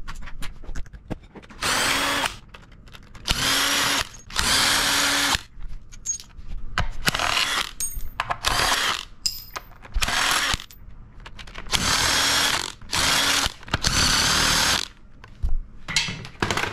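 Cordless power tool spinning a socket on a long extension, taking bolts out of the front of an engine block: about ten short runs of the motor, each under a second and a half, with brief pauses between them.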